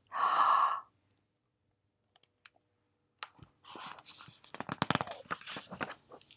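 Pages of a hardcover picture book being handled and turned: paper rustling with light clicks and scrapes through the second half. Before that comes a short breathy sound, then a pause of near silence.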